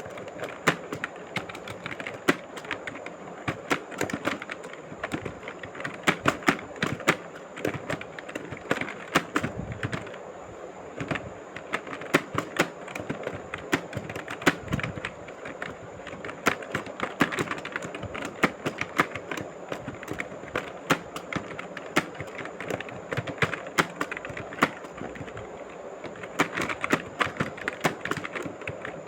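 Steady typing on a keyboard plugged into a phone by OTG: quick, uneven key clicks, several a second, with brief pauses between words.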